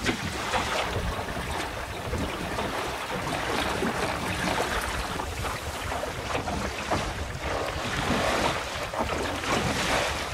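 Water washing along the hull of a small sailing dinghy under way, mixed with wind buffeting the microphone.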